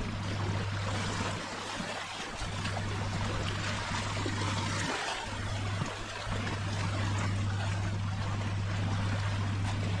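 Small waves lapping on sand and rocks at the water's edge, over a steady low hum that drops out briefly twice.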